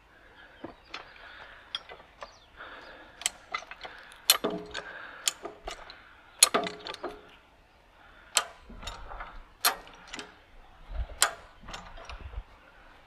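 High-lift farm jack being worked by hand: a string of irregular metallic clicks and clanks from its ratcheting climbing mechanism, with two louder clanks near the middle that ring briefly.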